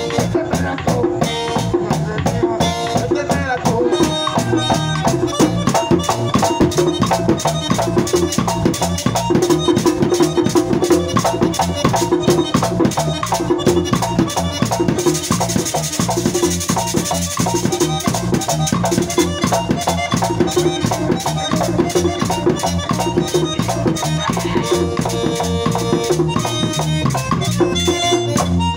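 Live band playing an instrumental stretch with no singing: electric guitar over bass and percussion with shakers, keeping a steady dance beat. A brighter, hissing high percussion sound comes in for a few seconds around the middle.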